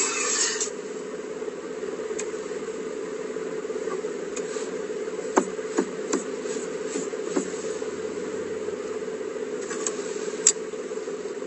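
Steady hum of a car cabin, heard from inside, with a few light clicks and taps around the middle and one near the end. Music cuts off about half a second in.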